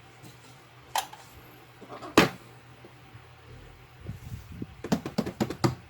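A few sharp clicks and knocks of small hard objects being handled: one about a second in, a louder knock a little after two seconds, then a quick run of clicks near the end.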